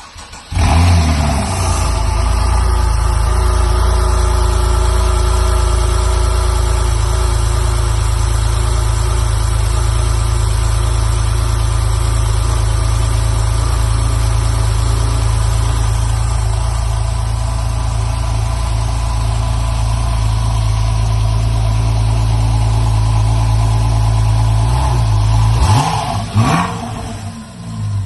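Porsche 911 flat-six engine starting, catching about half a second in with a short flare, then idling steadily. Near the end it is revved briefly, the pitch rising and falling, and it drops back to a lower idle.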